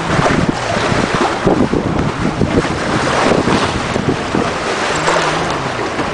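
Wind buffeting the microphone over the rush and splash of water along the hulls of a trimaran under sail, rising and falling unevenly.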